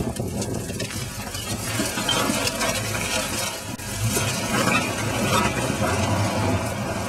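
1966 Chevrolet pickup's engine running as the truck crawls up a rocky slope, getting louder from about four seconds in, with rocks crunching and clinking under the tyres.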